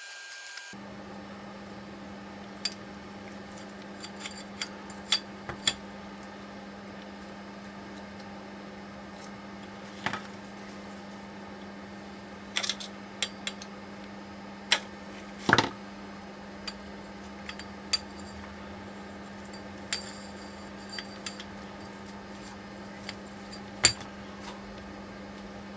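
Metal steering-rack parts and tools clinking and knocking against each other and the bench as the rack is taken apart. The knocks come at scattered intervals, with a louder clunk about halfway and another near the end, over a steady low hum.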